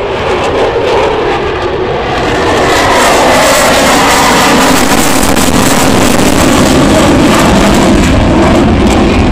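Eurofighter Typhoon FGR4 jet fighter's twin EJ200 turbofans in a flying display: a loud jet noise that swells about two to three seconds in and then stays steady.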